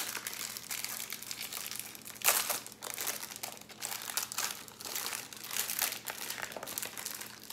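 Snack packaging crinkling as it is handled, a run of rustles and crackles with two louder ones, at the start and about two seconds in.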